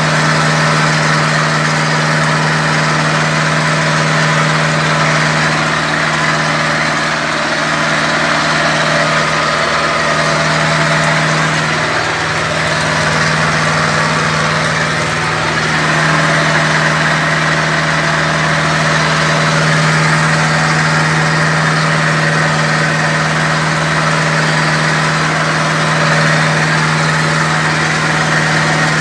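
Zetor tractor's four-cylinder diesel engine running steadily, heard from inside the cab, with a brief change in pitch about twelve seconds in.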